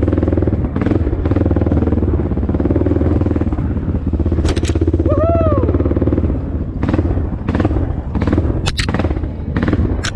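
Honda XR650L's single-cylinder four-stroke engine running steadily at low revs along a dirt trail, with several sharp clacks and knocks of the bike over rough ground. A short tone that rises and falls comes about five seconds in.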